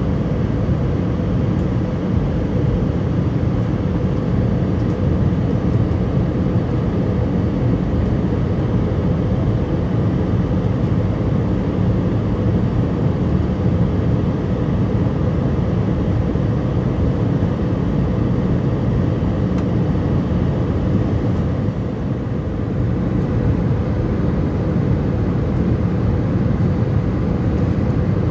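Steady in-flight cabin noise of an Airbus A319-111, heard at a window seat over the wing: the low hum of its CFM56 engines and the rush of air past the fuselage. The level dips slightly about three-quarters of the way through.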